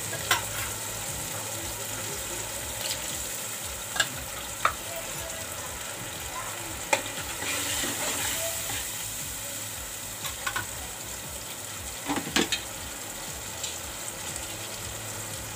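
Yogurt-and-spice masala sizzling in a nonstick kadhai with a little water just added, being bhuned (fried down). A steady hiss is broken by a few sharp clicks of the spatula knocking and scraping against the pan as it is stirred.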